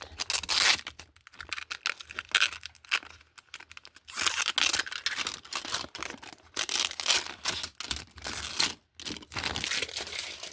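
Plastic packaging crinkling and tearing in irregular bursts as small plastic toy fridge shelves are unwrapped by hand.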